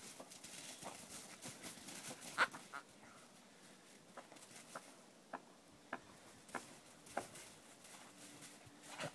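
A dog digging and nosing through fresh snow: faint crunching and scuffling, with one sharper snap about two and a half seconds in, then single short crunches about every half second.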